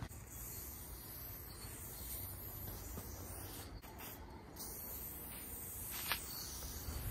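Aerosol spray paint can hissing steadily as lines are sprayed onto a wall, with two brief breaks about four seconds in and a sharp click about six seconds in, over a low rumble.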